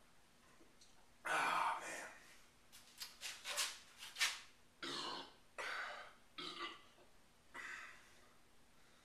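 A man belching repeatedly after gulping down malt liquor. There is a loud first belch just over a second in, a quick run of shorter sounds around three to four seconds, then four more separate burps through the rest.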